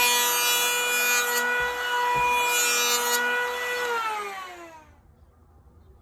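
Felisatti electric hand planer running at a steady pitch, its blades shaving wood twice, then switched off: the motor winds down with a falling pitch and stops about five seconds in.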